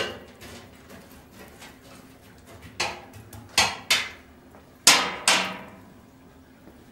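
A long metal coal rake clanking against the steel braai as glowing coals are raked under the grill grate and spread out. About six sharp metallic clanks, each ringing briefly; the loudest comes right at the start and another about five seconds in.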